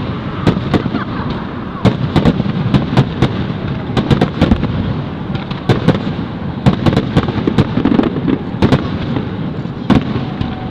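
Fireworks display: many sharp bangs of aerial shells bursting in quick, irregular succession, several a second, over a continuous low rumble.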